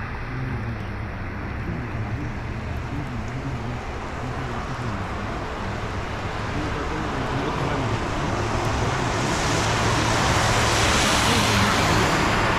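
Road traffic on a wet, flooded road: a low engine hum throughout, with the hiss of tyres on wet tarmac swelling over the last few seconds as a vehicle passes.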